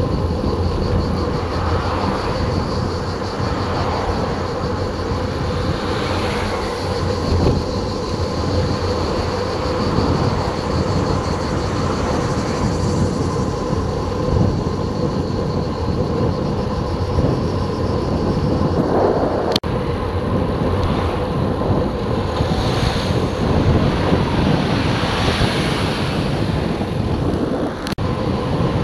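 Wind buffeting the microphone of a bicycle-mounted action camera at riding speed, with road noise and a steady faint hum underneath. There are two brief clicks, one around two-thirds of the way in and one near the end.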